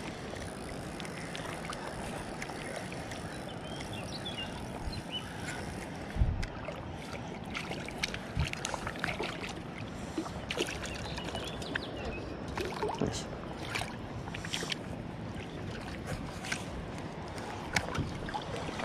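Steady rush of flowing creek water, with scattered small clicks and taps throughout and a dull thump about six seconds in.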